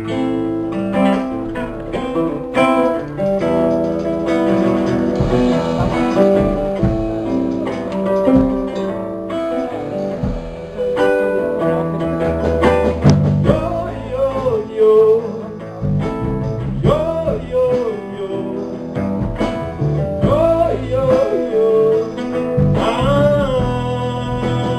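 A band playing the opening of a song live, led by plucked acoustic guitar. From about the middle, a melodic line comes in that slides and wavers in pitch.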